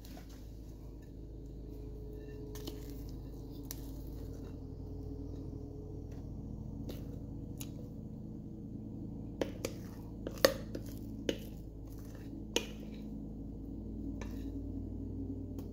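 Spoon scooping thick sourdough batter out of a mixing bowl into a foil pan of melted butter, with a few sharp clicks of the spoon against the bowl between about nine and thirteen seconds in, over a steady low hum.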